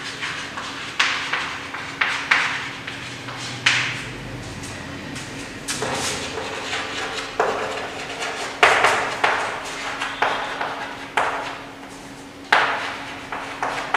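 Chalk writing on a chalkboard: repeated short scratching strokes, each starting with a sharp tap of the chalk against the board, with a brief lull about four to six seconds in.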